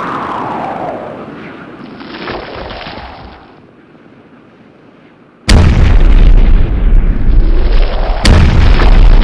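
Soundtrack sound effects: a swelling, whooshing noise that fades away over the first few seconds, then a sudden, very loud, distorted rumble like an explosion that cuts in about five and a half seconds in and keeps going, with a second sharp hit near the end.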